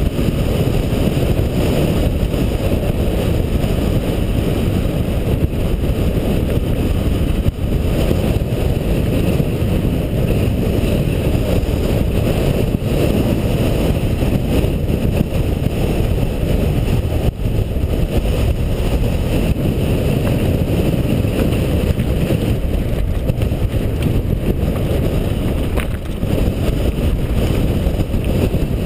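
Steady rumble of a mountain bike descending fast over a loose gravel and stone trail, the tyres' and frame's rattle mixed with wind buffeting a rider-mounted GoPro HD's microphone.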